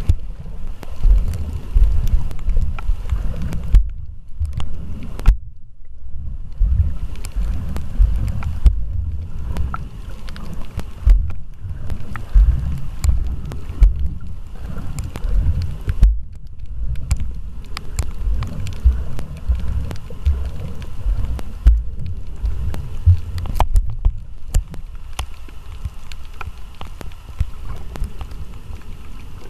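Muffled underwater sound through a camera's waterproof housing: an uneven low rumbling and thumping of water against the housing, with scattered faint clicks.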